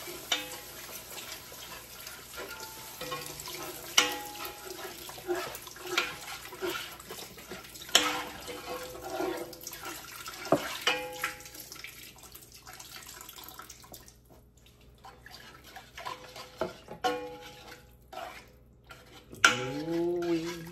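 Beef broth poured into a hot skillet of gravy and stirred in: liquid pouring and splashing with a steady hiss, and a utensil knocking on the pan every couple of seconds. The hiss fades out about twelve to fourteen seconds in.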